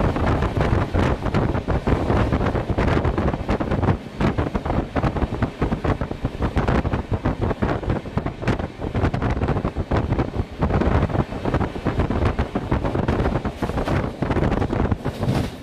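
Wind buffeting the microphone held out of the open door of a fast-moving passenger train, over the train's running noise on the rails.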